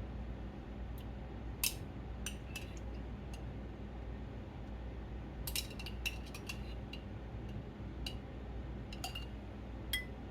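Scattered light clinks and taps of a utensil against a glass canning jar and dishes as home-canned cherries are scooped out and portioned into bowls, busiest around the middle, over a faint steady low hum.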